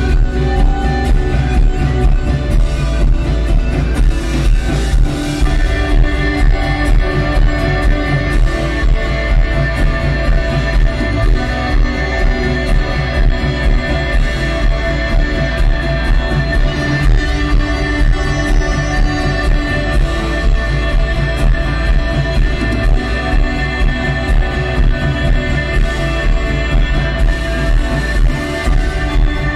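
A post-rock band playing loud live music: a steady, pulsing beat under sustained held tones.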